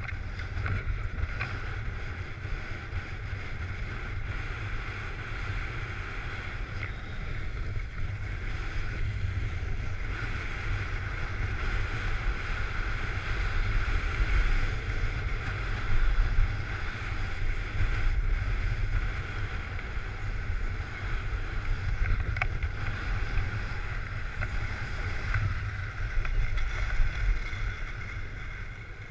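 Wind buffeting a GoPro's microphone as a low rumble, while skis hiss and scrape steadily over packed snow on a downhill run.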